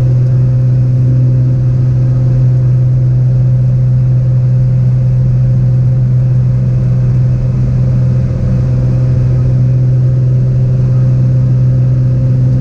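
Cessna 206's six-cylinder piston engine and propeller at takeoff power during the climb-out, heard inside the cabin: a steady drone with a strong low hum, dipping briefly about eight seconds in.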